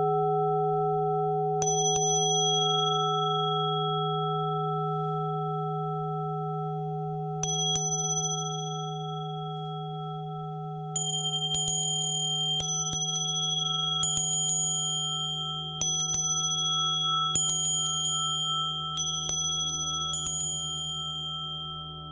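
Tibetan singing bowls ringing with a deep, steady, sustained hum. Higher-pitched bell strikes ring over it, once early, again about seven seconds in, then every second or so from about halfway, each fading quickly.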